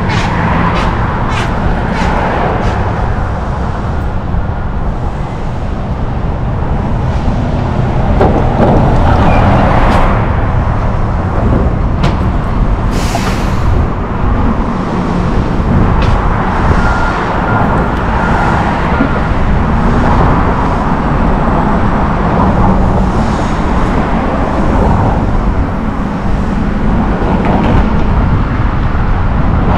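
Downtown city street traffic heard from a moving bicycle: cars and trucks passing under a steady low rumble, with a short hiss about thirteen seconds in.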